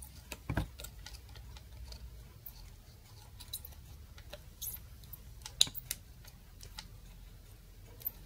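Soldering gun desoldering a small switch-mode power supply transformer from its circuit board: a low steady hum under scattered small clicks and ticks of the tip working the pins and the board being handled.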